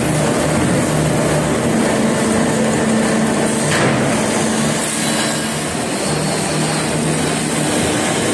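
Log debarker (rounding machine) of a veneer peeling line running with a log in its rollers: steady mechanical noise over a low motor hum, with one sharp knock about four seconds in.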